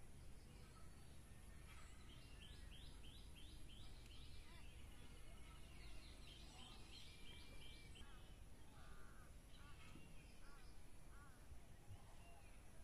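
Faint birdsong over a low rumble: quick runs of short high chirps about two seconds in and again around six seconds, then lower arched calls in the second half.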